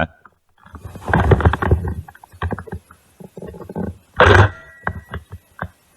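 Handling noise on a gun-mounted camera: irregular knocks and rustling, with one loud thump about four seconds in.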